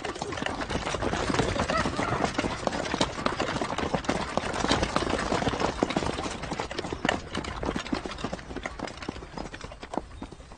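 Horse hooves clip-clopping along with a horse-drawn cart and the clatter of many people moving off on foot, dying down toward the end.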